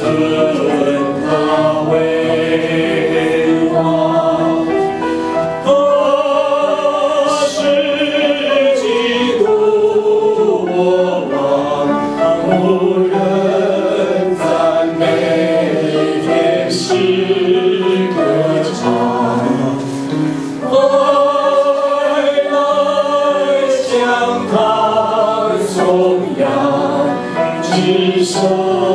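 Small vocal group of three men and a woman singing together through handheld microphones and a PA, with several long held notes.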